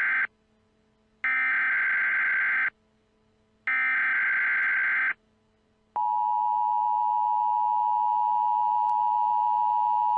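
Emergency Alert System SAME header: the end of one buzzy data burst, then two more, each about a second and a half long with a second of silence between. About six seconds in, the steady two-tone EAS attention signal (853 and 960 Hz) starts.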